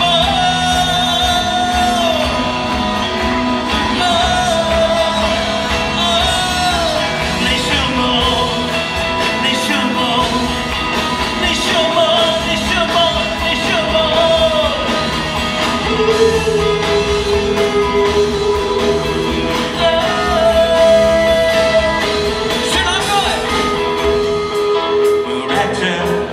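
A band playing a song live, with a singer holding long, gliding notes over the instruments.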